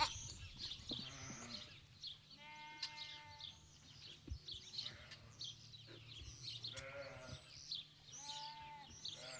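A flock of sheep bleating faintly: drawn-out calls about two to three seconds in and again several times near the end, over a busy background of shorter, higher calls.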